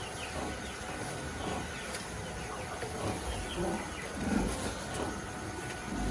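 Birds chirping: many short, high chirps repeating over a steady farmyard background, with a few louder low sounds a little after the middle.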